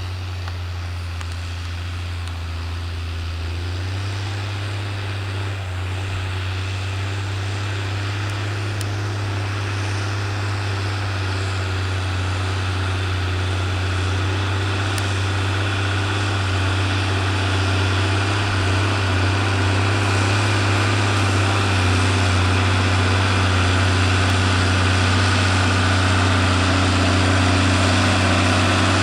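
New Holland TM120 tractor's diesel engine working under load while pulling a plough, with a steady low drone that grows gradually louder.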